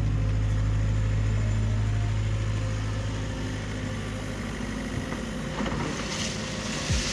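Engine of a compact construction machine running steadily, dropping back to a lower level about three seconds in.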